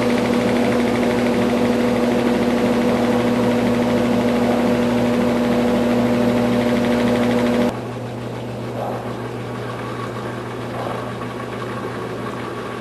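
Brastemp Tira-Manchas 9 kg top-load washing machine running with a steady, loud mechanical hum that cuts off abruptly a little over halfway through, leaving a quieter hum.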